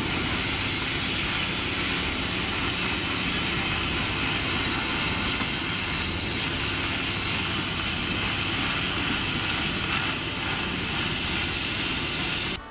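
Oxy-fuel cutting torch cutting through steel plate, a steady hiss from the torch's flame and oxygen jet.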